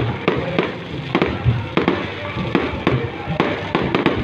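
Fireworks going off in quick succession: a rapid, irregular string of bangs and pops, several a second, with music playing underneath.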